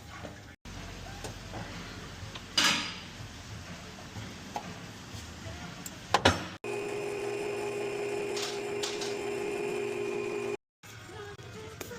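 Workshop sounds: a couple of sharp metal clanks from tools, then a steady machine hum holding a fixed pitch for about four seconds that stops abruptly.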